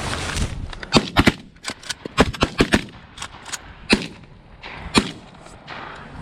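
A volley of about a dozen shotgun shots from several hunters firing together, in quick overlapping clusters for about two seconds and then spaced out, with the last shot about five seconds in.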